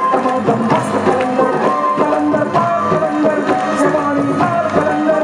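Live Sufi devotional music: a woman singing with tabla-style hand-drum beats and sustained melodic accompaniment.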